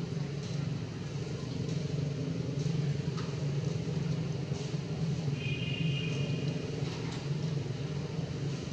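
Steady low rumble of an engine running. A brief high whistling tone rises above it about five and a half seconds in and lasts just over a second.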